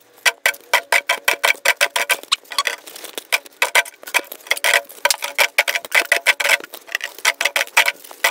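A rapid, uneven series of sharp clicks, about three to four a second, over a faint steady hum.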